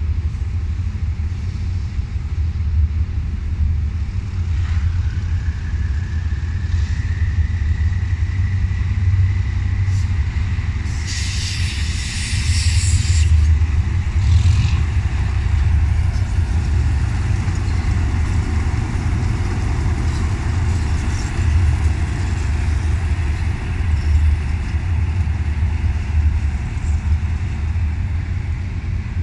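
Hitachi 8FA-36C diesel-electric locomotive's engine running with a steady low rumble. About eleven seconds in comes a hiss of released air lasting about two seconds, and a faint high whine comes in about five seconds in and holds.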